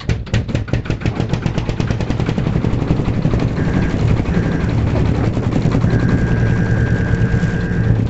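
Tractor engine starting and running with a fast, even knock. A horn sounds twice briefly in the middle, then is held for about two seconds near the end.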